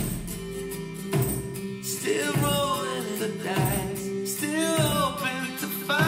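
Guitar music played through a pair of JBL Control 1G compact speakers, with a singing voice coming in about two seconds in.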